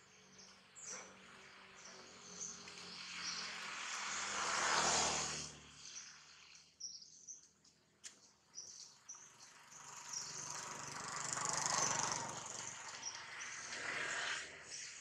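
Small birds chirping, with two long swells of rushing noise that build and fade, the first peaking about five seconds in and the second around twelve seconds.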